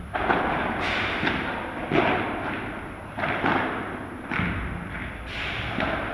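Padel ball hit back and forth with solid paddles and bouncing off the court and glass walls: a string of sharp, irregularly spaced pops and thuds, each trailed by hall echo.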